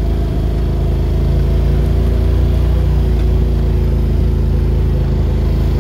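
Polaris RZR 1000 side-by-side's engine running steadily as it drives along a rough dirt trail, heard from the open cab.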